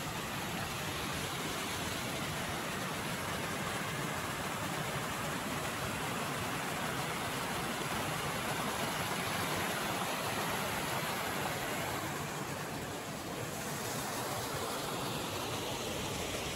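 Steady rush of a mountain stream, an even hiss of running water.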